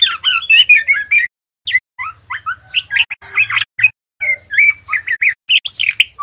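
Young male white-rumped shama, still in speckled juvenile plumage, practising its song: rapid runs of short, varied chirps and twitters in three bursts with short breaks between them.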